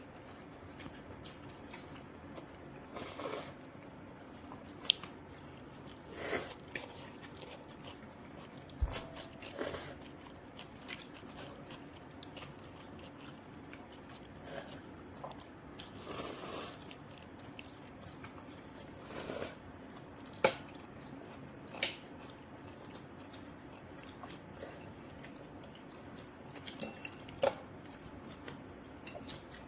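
People eating cream pasta: soft chewing and mouth noises, broken by a few sharp clicks of cutlery.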